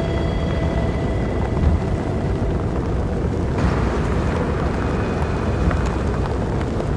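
Strong tornado wind rushing and buffeting the microphone in a steady, deep, noisy roar. About halfway through, the hiss turns brighter and sharper.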